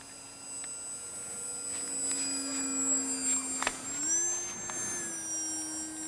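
Electric ducted fan of a 64 mm EDF RC flying wing whining steadily as the model flies overhead; the whine steps up in pitch about four seconds in, just after a single sharp click.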